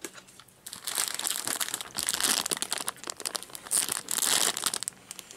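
Clear plastic snack bag crinkling as it is handled and worked open, in bursts from about a second in until near the end.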